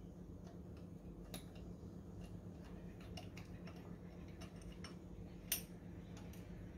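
Faint small clicks and light metallic taps from hands working on the top of the engine, with one sharper click about five and a half seconds in, over a low steady hum.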